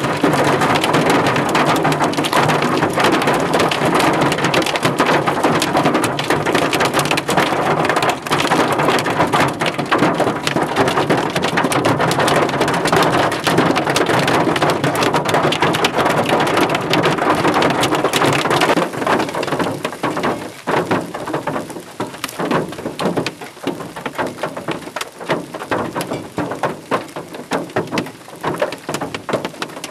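Marble-sized hail pounding on a vehicle's roof and windshield in a dense, steady clatter. About two-thirds of the way in it becomes quieter and thins into separate hits, hail falling on a hail-covered road.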